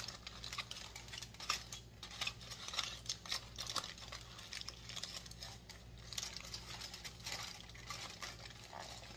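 Aluminium foil being crumpled and crimped by hand, with irregular crinkling and crackling as a foil packet is folded and squeezed tight to seal it.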